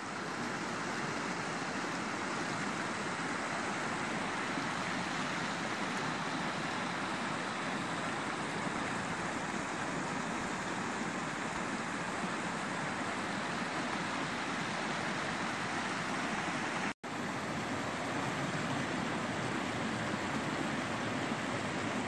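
Snowmelt mountain creek rushing and splashing over rocks and small cascades, a steady full rush broken once by a split-second gap about three-quarters of the way through.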